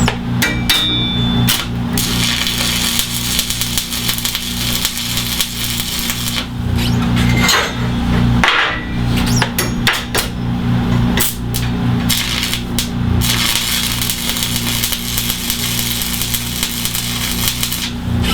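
Electric arc welding on steel bench legs: the welding arc crackling in several runs of a few seconds each, with short breaks between beads.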